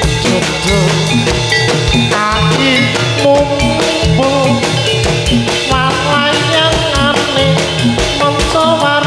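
Lively jathilan accompaniment music: steady drumming with a wavering melody over it, playing continuously.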